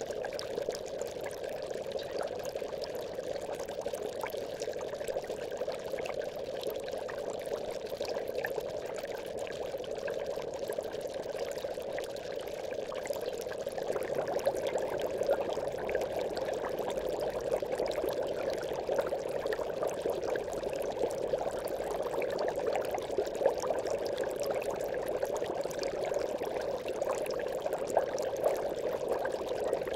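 Aquarium bubbles: a steady stream of air bubbling up through water, with many small quick pops. It gets a little louder about halfway through.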